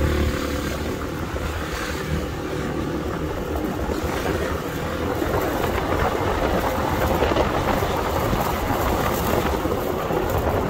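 City street traffic. An engine hum fades out over the first couple of seconds, then a steady rush of passing vehicles follows.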